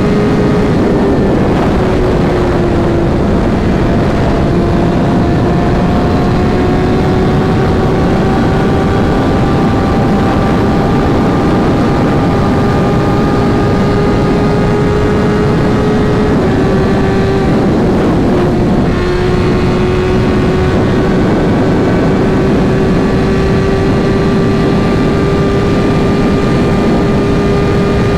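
Suzuki GSX-R1000 inline-four engine with a Racefit exhaust, running steadily under way at a held engine speed. The pitch dips slightly about two seconds in, rises slowly over the following seconds, and wavers once more about two-thirds of the way through.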